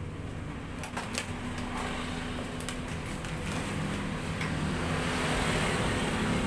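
Hot-air heat gun running: a steady fan hum with a rushing hiss that slowly grows louder, with a few light clicks and crackles of vinyl film being handled.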